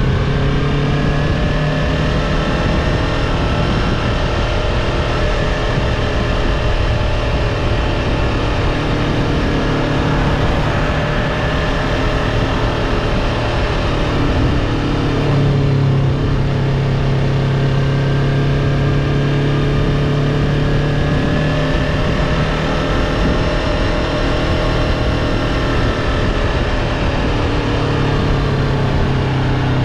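Yamaha R3's parallel-twin engine running under way at a fairly steady speed, its pitch drifting slowly down and back up, over a constant rush of wind and road noise.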